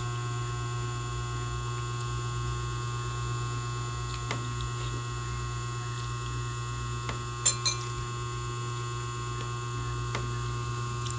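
Metal spoon clinking against a glass bowl a few times, loudest as two quick clinks about seven and a half seconds in, over a steady electrical hum.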